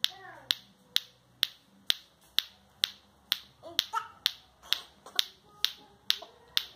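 Clackers (bate-bate toy): two blue plastic balls on a string knocking together in a steady rhythm, about two sharp clacks a second.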